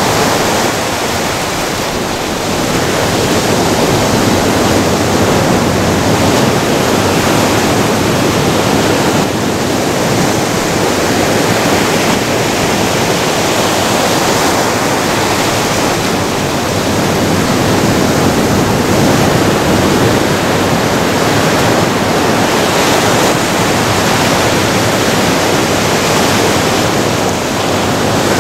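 Ocean surf breaking and washing up over sand and rocks: a loud, continuous rush that swells and eases slowly with the waves.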